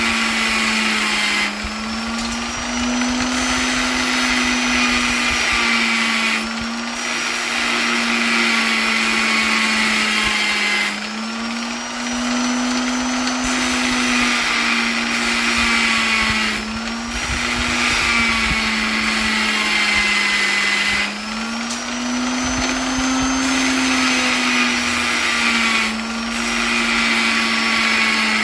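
Electric polisher motor running continuously with a steady high whine. Its pitch and loudness dip briefly about every five seconds, then recover.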